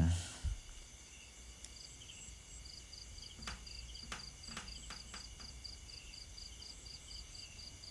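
Insects chirping outdoors: a steady high trill with a short repeated chirp about four times a second starting a few seconds in, plus a few faint clicks in the middle.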